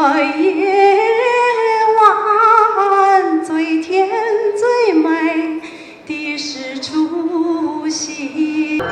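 A woman singing a slow melody with long held notes and vibrato, gliding between pitches, with a brief break about six seconds in.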